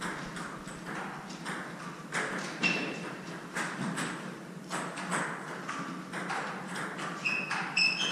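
Table tennis ball clicking sharply and repeatedly against the table and paddles, with a few short high squeaks of sneakers on the wooden court floor.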